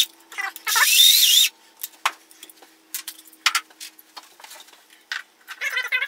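Cordless impact driver running in a burst of about a second, with a wavering whine, driving a screw into the light switch's 3D-printed mounting frame; then scattered clicks and knocks of the switch and screws being handled. Near the end a fast rattling starts.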